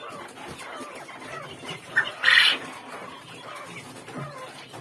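Caged young quail chirping and calling, many small calls overlapping. A brief rustling hiss about two seconds in stands out as the loudest sound.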